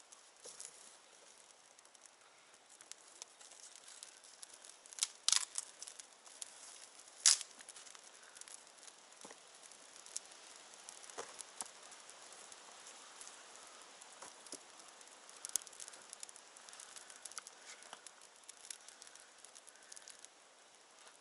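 Small campfire of freshly lit kindling crackling, with many light ticks and a few louder sharp snaps, two of them close together about five seconds in and another about seven seconds in.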